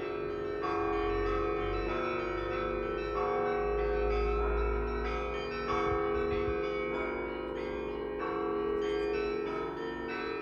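Church bells ringing a peal: several bells struck in turn about once a second, their tones overlapping over a steady deep ringing.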